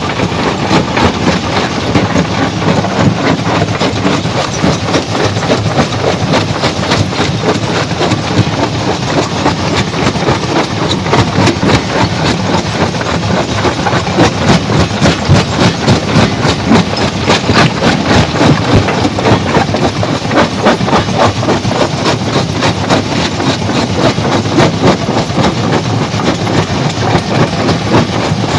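Stone crusher running under load, with a continuous loud clatter of rock knocking and rattling through the machine.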